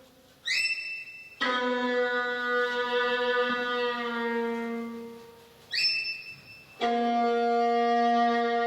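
Slow instrumental background music: two long sustained chords, each introduced by a short high ringing note, the first about a second and a half in and the second about seven seconds in.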